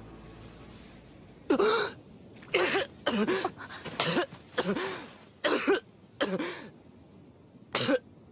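A young man's voice coughing in a fit: about nine harsh coughs, starting about a second and a half in, from a character who has fallen sick.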